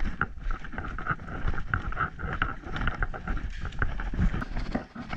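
Footsteps on concrete with rustling, knocking handling noise from a moving camera, and some wind on the microphone.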